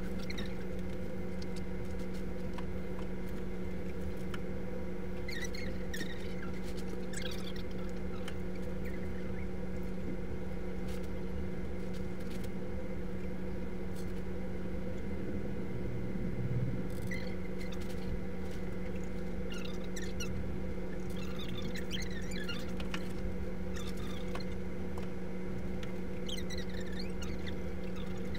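Steady low electrical hum, with scattered faint squeaks and scratches from painting tools working on the mural paper, most of them in two stretches early and late.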